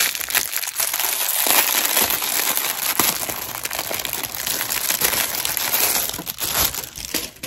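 Packaging being handled and opened, with a continuous crinkling and crackling that dies down near the end.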